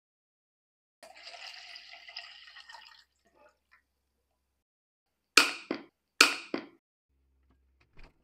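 Water poured from a jug over diced vegetables in a glass container, splashing and trickling for about two seconds. A few seconds later come two sharp double clacks, the loudest sounds, and a faint click near the end.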